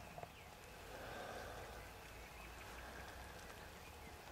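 Faint outdoor background: a low, even hiss with one small click just after the start.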